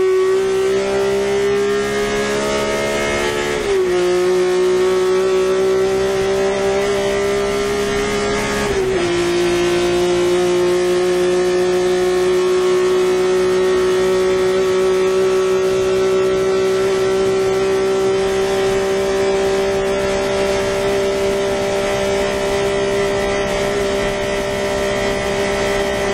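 BMW M1 race car's straight-six engine at full throttle, heard from inside the cockpit. Its pitch climbs and drops sharply at upshifts about 4 and 9 seconds in, then rises slowly through a long pull in the next gear.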